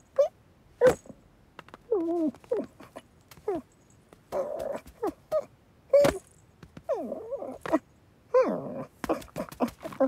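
Cartoon kitten's voiced sound effects: a string of short straining growls, mews and whimpers, some sliding down in pitch, mixed with sharp clicks and taps of the scuffle.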